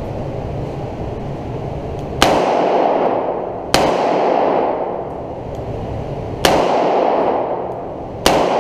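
Four revolver shots, each followed by a long echo in the indoor range: two about a second and a half apart, a pause, then two more close together near the end.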